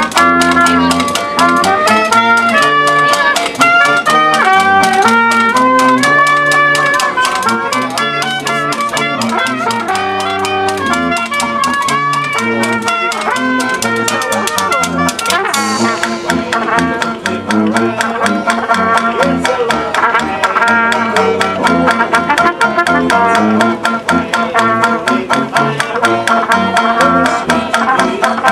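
Traditional jazz band playing: a trumpet leads the melody over a walking tuba bass, with banjo and washboard keeping a steady beat. About halfway through, the held trumpet notes give way and the strummed rhythm comes forward.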